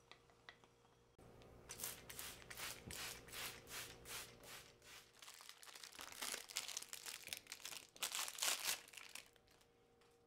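Paper being handled, rustling and crinkling in a quick run of crackly rustles that lasts several seconds and stops near the end.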